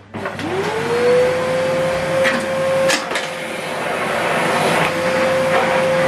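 Hoover Whirlwind bagless cylinder vacuum cleaner switched on: its motor whine climbs in pitch over about a second, then holds steady over a rush of suction air. A few short knocks sound about halfway through.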